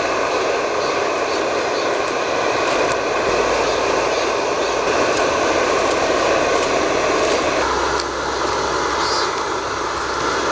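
A valley stream rushing steadily over rocks, a dense, even water noise.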